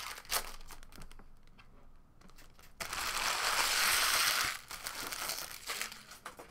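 Foil trading-card pack wrappers crinkling, with scattered crisp crackles, and a louder, denser stretch of crumpling about three seconds in that lasts under two seconds.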